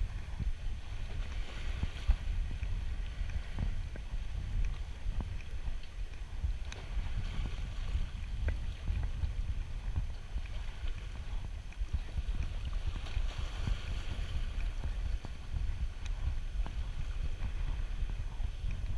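Wind buffeting the microphone as a steady low rumble, with small waves washing against the shoreline rocks in a hiss that swells and fades.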